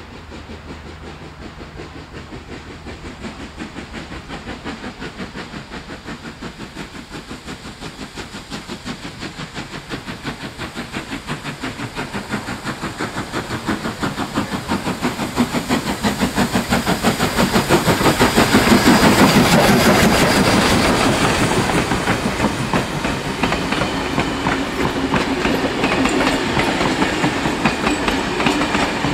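NSW 35-class steam locomotive 3526 working a train, its exhaust beats chuffing in a steady fast rhythm that grows louder as it approaches and is loudest as it passes, about two-thirds of the way through. Then the wooden passenger carriages roll past with a clickety-clack of wheels over the rail joints.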